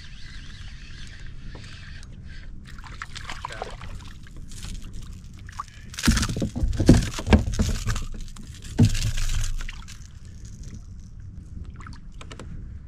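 Water sloshing and gurgling against a kayak hull. About halfway through comes a few seconds of louder knocks and rustling, like gear being handled on the boat.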